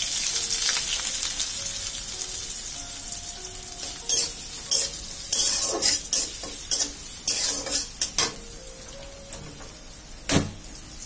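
Chopped onion hitting hot oil in a pan and sizzling, loudest at first and slowly fading because the burner is off. From about four seconds in there are short stirring strokes against the pan, and there is a single knock near the end.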